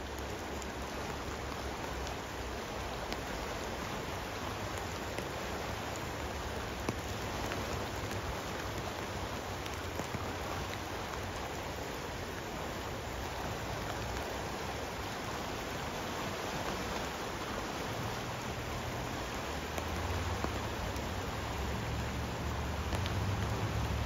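Steady rain falling, with scattered drops ticking, over the rush of river water. A low rumble grows louder in the last few seconds.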